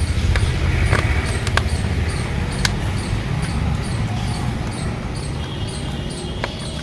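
Hard plastic parts of a toy vehicle and a screwdriver being handled: a few scattered light clicks and taps over a steady low rumble.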